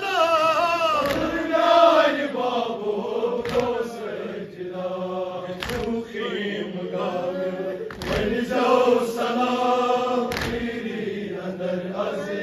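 A Shia nauha chanted by men, a lead reciter's voice through a microphone with a group chanting along. A heavy thud lands about every two and a half seconds, in time with the chant, from the mourners beating their chests (matam).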